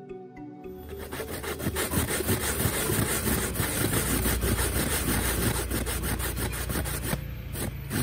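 Coconut flesh being grated by hand on a flat metal grater, with quick repeated rasping strokes starting about a second in and easing off near the end.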